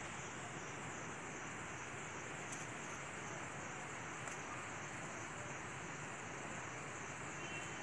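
Steady outdoor background hiss with a faint, high insect chorus that pulses evenly, and two faint ticks.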